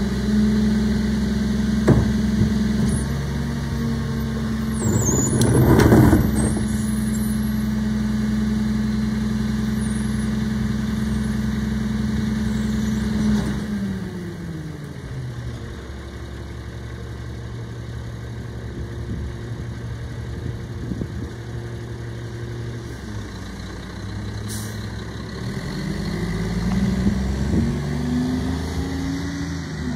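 Rear-loading garbage truck's diesel engine held at raised revs to run the packer, with loud metallic clanks around 2 and 5–6 seconds in as the cart is tipped and banged against the hopper. About halfway through the engine drops to idle, and near the end it revs up as the truck pulls away.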